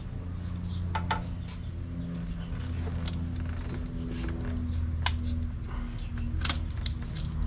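Spark plug wire boots being handled and pushed onto the terminals of a new distributor cap, giving a few scattered sharp clicks and snaps over a steady low hum.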